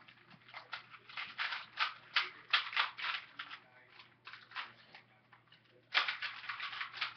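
Plastic Rubik's cubes clicking and rattling as their layers are turned fast during a speedsolve, in rapid irregular bursts of clicks with a short lull about four seconds in.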